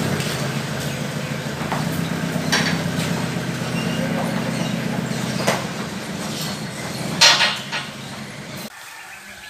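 Small utility van's engine running steadily as it drives off, slowly getting quieter, with a few sharp metallic clinks; the sound cuts off abruptly near the end.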